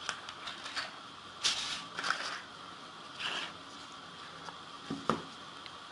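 Plastic protective film printed with the phone's specs being peeled off a smartphone screen and handled, in a few short rustling, crinkling swishes, with one light knock about five seconds in.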